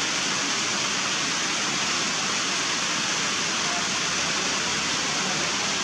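Heavy rain pouring steadily in a forest, an even hiss.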